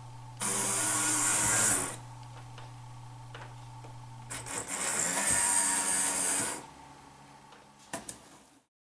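Faller Play Train toy locomotive's small DC motor and plastic worm gear whirring as it runs along the track twice, once each way. It is driven only through its lubricated rear worm gear, the broken front gear removed.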